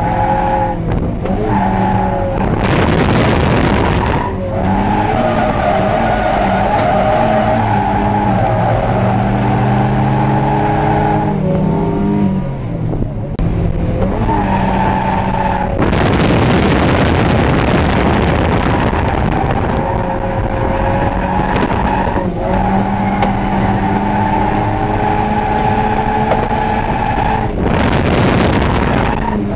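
Mazda Eunos Roadster's 1.6-litre B6ZE four-cylinder heard from inside the cabin, revving hard and rising and falling in pitch through gear changes on a drift run. Spells of loud tyre noise come and go.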